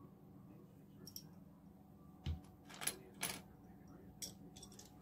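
Plastic Lego pieces clicking and clattering as they are picked out of a loose pile by hand: a handful of separate faint clicks and short rattles, with a soft thump about two seconds in.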